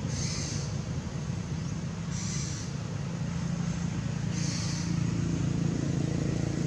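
A steady low engine drone that swells a little about four seconds in, with a short high hiss repeating about every two seconds.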